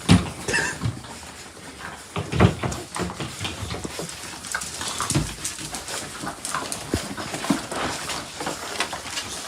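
A dog making short sounds among irregular knocks and thumps, the loudest thumps near the start and about two and a half and five seconds in.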